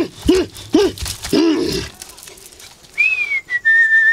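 Four short barking yelps over the first two seconds, each rising and then falling in pitch. About three seconds in, a whistle starts: a clear note that slides down and then holds one steady pitch.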